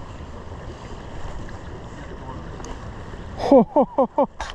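Steady rush of wind and flowing river water. Near the end, a loud quick run of four or five short calls, each sliding sharply down in pitch.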